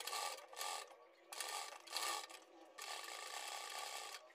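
Sewing machine stitching a fabric strip around a curved neck piece, running in short stop-and-go runs with a longer steady run in the second half.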